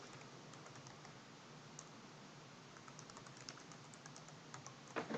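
Faint typing on a computer keyboard while a login name and password are entered: scattered key clicks, coming thicker after about three seconds, with a louder keystroke near the end.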